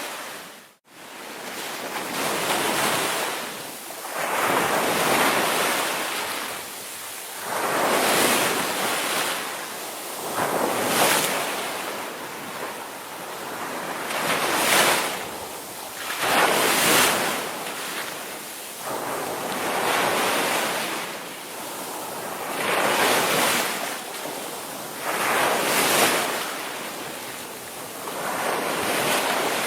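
Ocean surf: waves breaking and washing in one after another, swelling and fading about every two to three seconds. The sound cuts out suddenly for a moment near the start.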